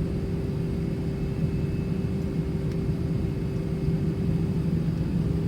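Steady cabin rumble inside an Airbus A319 with its engines running, with a constant hum over it and fainter steady high tones.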